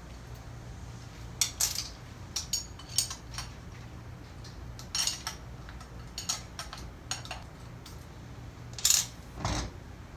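Metal clinks and taps of tools and valve parts being handled during disassembly of a pneumatic diaphragm valve: a dozen or so short, sharp, irregular clicks, with a duller knock near the end, over a low steady hum.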